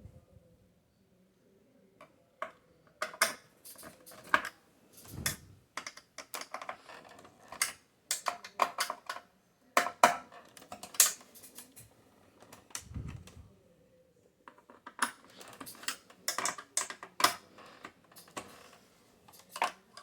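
Irregular small clicks and light metallic clatter of a screwdriver and screws being worked into a computer's chassis, with a couple of dull handling thumps.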